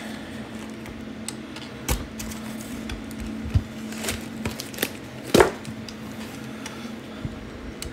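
Unpacking noise: tissue paper rustling and a polystyrene foam packing insert being handled, with scattered clicks and knocks, the loudest about five and a half seconds in.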